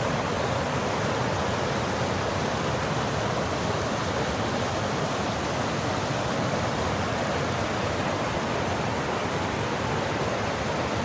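Steady rushing of river water: an even hiss, unbroken and unchanging in level.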